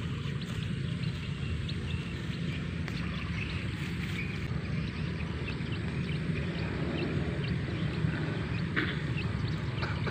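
Steady low rumble of wind buffeting the microphone, with faint short high chirps scattered through and a brief louder burst near the end.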